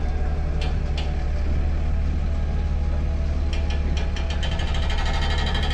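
Truck-mounted crane's engine running steadily as it lowers a suspended elephant, with two sharp clicks just after the start and a run of rapid clicking and rattling from about three and a half seconds in.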